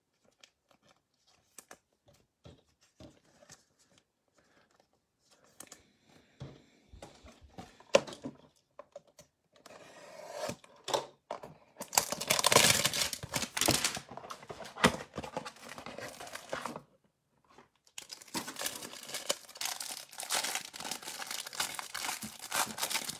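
Trading cards being handled and set down with small clicks and taps. About halfway through, a cardboard hanger box is torn open in a loud stretch of ripping. Near the end, the cellophane wrapper around the cards crinkles and rips as it is peeled open.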